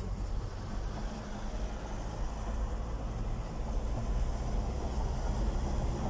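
Engine and tyre noise of a moving car heard from inside the cabin: a steady low rumble.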